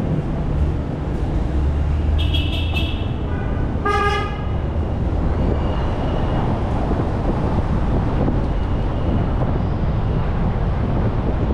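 Steady road and engine rumble from a car driving on city streets, with a short vehicle horn toot about four seconds in, just after a brief high-pitched tone.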